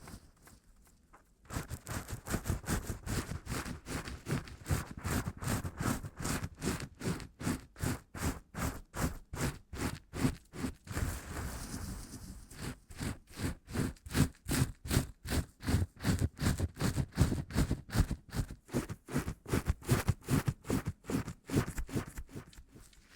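Rhythmic strokes, about three a second, starting a second and a half in, easing briefly midway and stopping just before the end.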